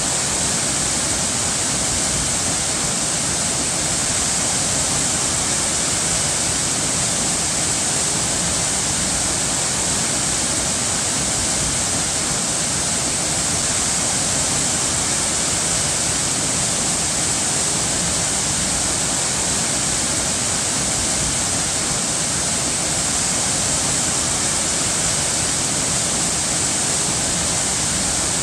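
Running water, a steady rushing with no change in level or rhythm and much of its energy in a bright hiss.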